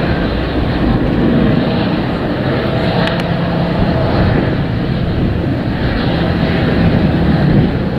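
Twin rear-mounted turbofan engines of a large business jet running at low taxi thrust, a steady rumble with a faint hum.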